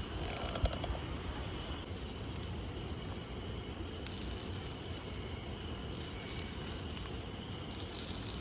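Lamb sizzling on a jingisukan grill pan, a steady hiss with fine crackling.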